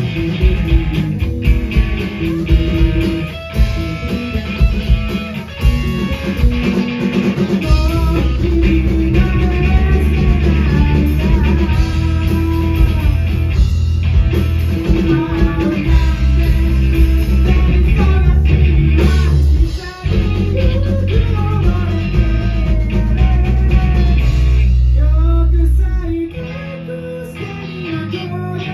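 Rock band playing live: electric guitars, bass and drum kit, with a male singer carrying the melody. About 26 seconds in the band drops back to a quieter, thinner passage.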